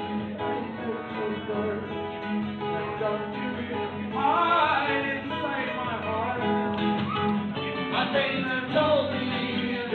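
Acoustic guitar music with a singing voice.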